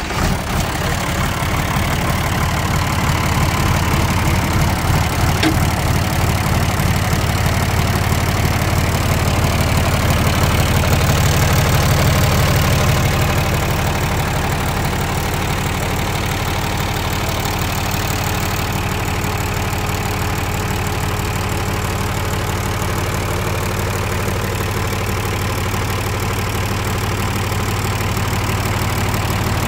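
John Deere 2955's six-cylinder turbocharged diesel engine idling steadily, a little louder for a few seconds near the middle.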